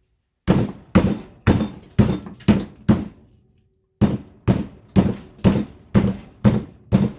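Hammer blows on a fluorescent light ballast being broken apart for its copper windings, struck about twice a second: six blows, a pause of about a second, then seven more.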